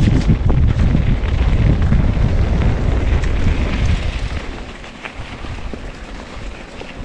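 Mountain bike riding fast down a dirt trail: wind buffeting the camera microphone over the rumble of tyres on the ground, with scattered clicks and knocks from the bike. The rumble eases about four and a half seconds in as the pace drops.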